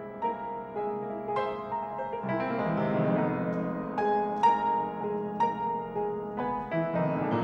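Background music: a slow, gentle piano piece of struck notes, each left to ring out.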